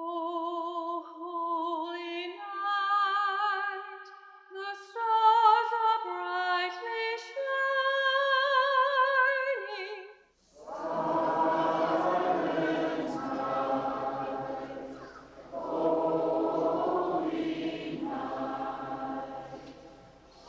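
Unaccompanied voices singing in harmony with vibrato, entering one after another. About ten seconds in, a larger group of singers takes over, fuller and with room echo.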